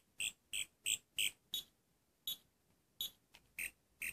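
Wand Company 10th Doctor sonic screwdriver remote giving a run of short, high electronic chirps, about three a second, that turn sparser and uneven after about a second and a half as it is tapped through its sound effects.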